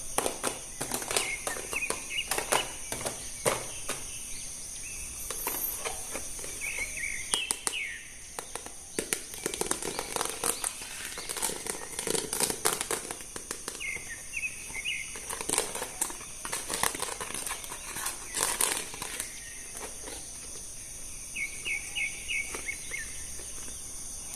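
Plastic packaging and toy parts crinkling, rustling and clicking as action figures are unboxed and handled, with a few short bird chirps and a steady high hiss behind.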